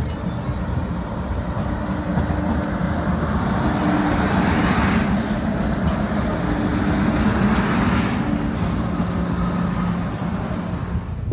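MBTA Green Line light-rail train running past below, a rumble of wheels on rail with a steady motor hum, growing louder toward the middle and easing near the end.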